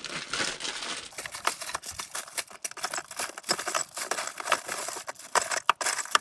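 Hands rummaging through small plumbing parts and washers: a run of light clicks and rattles with some rustling.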